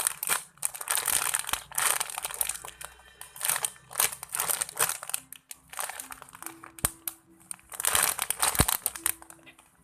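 Soft foam squishy being squeezed and released close to the microphone, giving repeated crinkly rustling bursts about a second long with short pauses between them.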